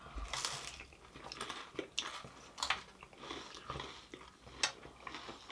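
Crisp jalebi being bitten and chewed, with irregular crunches, the sharpest about half a second in.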